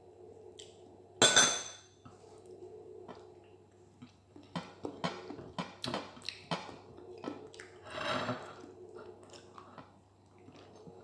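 Close-mic eating sounds of rice and boiled egg eaten by hand: chewing and small wet mouth clicks, thickest in the middle. About a second in, a brief sharp clatter is the loudest sound.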